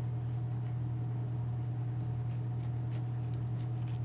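Chef's knife cutting the rind and eyes off a pineapple on a plastic cutting board: a string of short, crisp scraping cuts. A steady low hum runs underneath and is the loudest sound.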